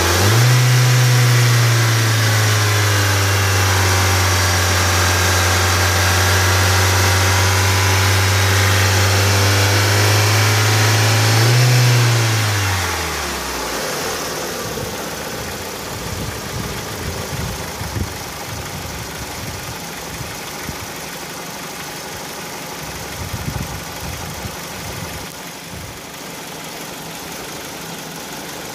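Ford 2.0L Split Port four-cylinder engine running, with a noise that the owner cannot place as coming from inside the engine or from outside it. A strong steady low hum dominates at first, rises briefly about 12 seconds in, then fades out. A quieter running sound with a few scattered knocks follows.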